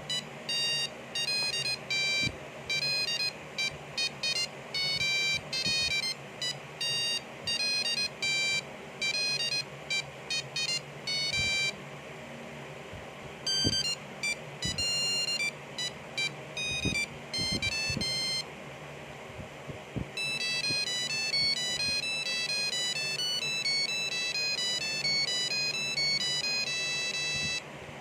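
Nokia 3310 monophonic ringtones played through the phone's small speaker: three short beeping tunes, one after another, with brief pauses about 12 and 19 seconds in.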